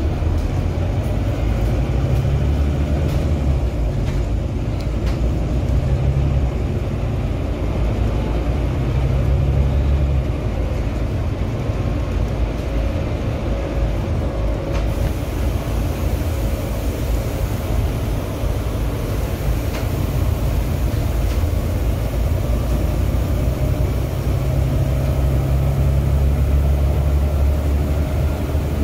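Inside a Volvo B9TL Enviro 400 double-decker bus under way: a steady low drone from its Volvo D9B six-cylinder diesel together with road and wind noise, the engine note swelling and easing a few times. A few light rattles of the interior fittings in the first several seconds.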